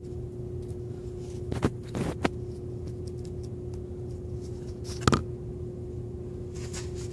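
Steady room hum with a constant low tone, broken by a few sharp knocks and clicks about one and a half to two and a half seconds in and once more about five seconds in.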